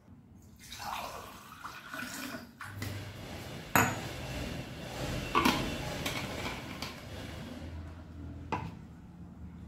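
Cold drinking water being poured and handled, a running hiss of liquid with three sharp clinks of the vessel.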